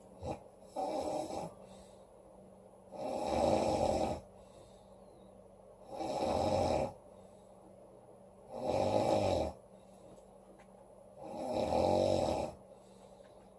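A woman snoring loudly: five snores about every two and a half seconds, each lasting about a second, with quiet breathing between.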